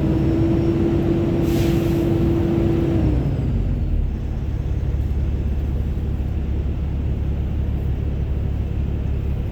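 Semi truck's diesel engine running with the hood up, being revved to listen for a turbo leak suspected of causing a hissing under load. A steady whine sits over the engine's low hum and falls away about three seconds in.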